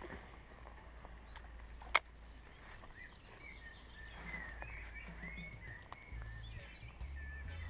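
Lakeside outdoor ambience with birds chirping in short curved calls through the second half. A single sharp click about two seconds in is the loudest sound.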